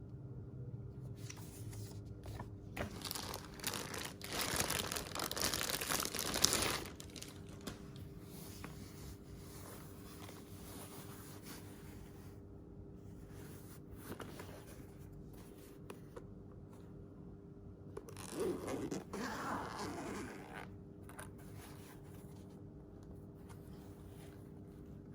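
Packaging being torn open and crinkled by hand, in two spells: a longer one of a few seconds near the start and a shorter one later. A faint steady hum runs underneath.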